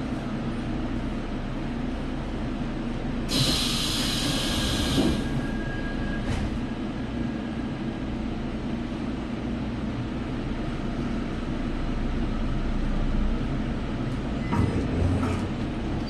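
Inside a Seoul Subway Line 1 electric train pulling out of a station: a steady low rumble, with a loud hiss about three seconds in that lasts about two seconds, and a few light knocks near the end.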